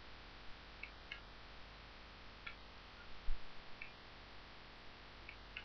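Faint computer mouse clicks, about seven short, irregular ones, with a duller knock about three seconds in, over a steady low hum.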